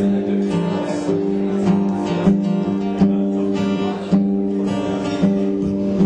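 Acoustic guitar strummed in a steady rhythm, its chords ringing on between accented strokes, in a passage with no singing.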